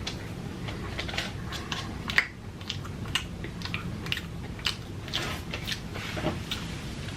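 A person chewing and crunching food, with irregular crisp crunches, the sharpest about two seconds in.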